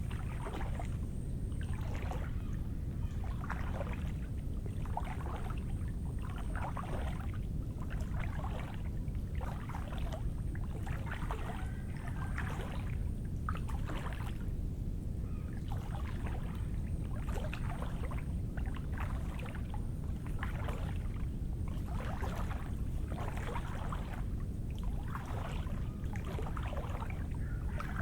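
Footsteps squelching through wet, muddy ground at a walking pace, about one step a second, over a steady low rumble.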